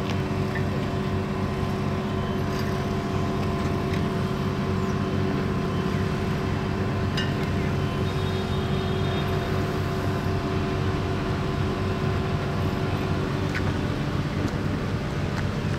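A heavy diesel engine running steadily at idle, a low even drone, with a few faint clicks.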